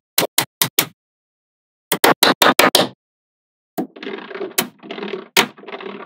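Small magnetic balls snapping together in quick runs of sharp clicks, about five in the first second and six more a second later. From about two seconds before the end, a continuous grainy rattle of balls rolling and shifting against each other, broken by a couple more sharp snaps.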